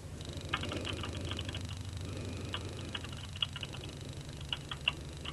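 Computer keyboard typing in quick, irregular runs of keystrokes, heard over a phone line with a steady low hum underneath: a case name being keyed into a search.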